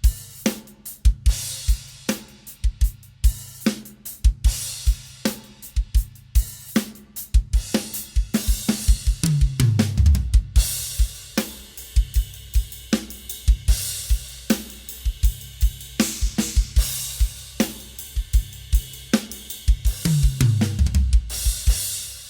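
Drum kit played in a steady groove around handmade B20 bronze cymbals, with hi-hat and cymbal wash over kick and snare. Twice, about ten seconds in and near the end, a fill runs down the toms, falling in pitch.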